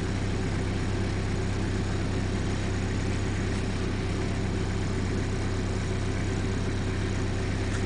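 Van engine idling steadily, a low, even hum.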